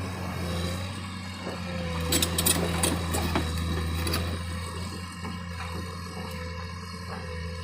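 A machine engine running with a steady hum, with a cluster of sharp clicks and knocks about two to four seconds in.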